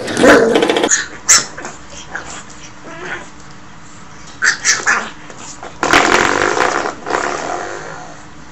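Puppy growling and yapping in several short outbursts, the loudest in the first second, while it attacks a spring door stopper.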